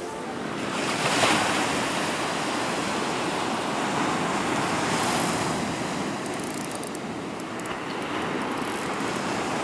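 Sea surf breaking on the beach: a steady wash of waves that swells about a second in and again about five seconds in, with some wind on the microphone.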